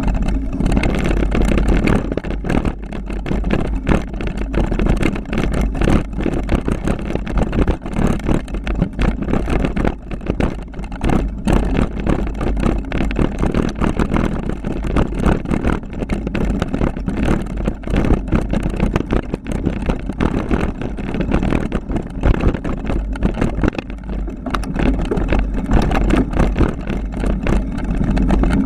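Kron XC 500 mountain bike descending a rough dirt downhill trail: a steady rumble of wind and tyres with constant rattling knocks as it bounces over the bumps.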